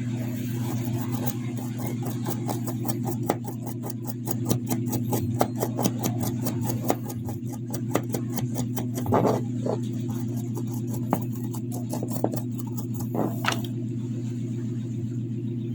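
Rapid scratchy strokes of cleaning on the speaker's circuit board around a freshly soldered charging port. They come about five a second for the first seven seconds, then sparser and more spaced out, over a steady low background hum.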